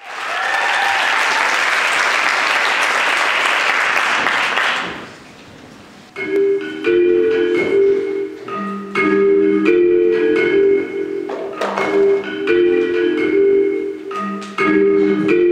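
An audience applauds for about five seconds, then dies away. About six seconds in, the routine's music starts: a repeating melody of short struck notes, like a marimba, over a beat.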